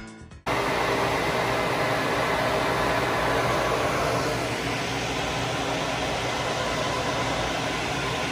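Laser cutter exhaust fan running steadily: an even rush of air with a faint hum. It cuts in abruptly about half a second in.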